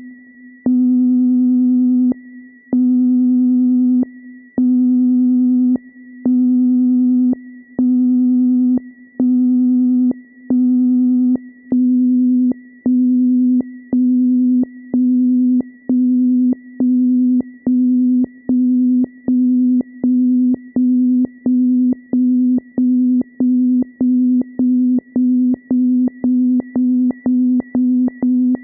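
Vintage sci-fi space radar sound effect: a synthesized low electronic hum pulsing on and off, with a warbling high beep riding on each pulse. The pulses grow shorter and quicker, from about one every second and a half to about two a second.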